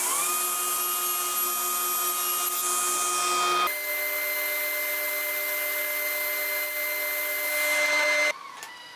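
Felder K500S sliding table saw running, its blade whining steadily over a loud hiss as a thin board is pushed through the cut. The whine's pitch shifts suddenly a little over halfway, and the sound drops away shortly before the end.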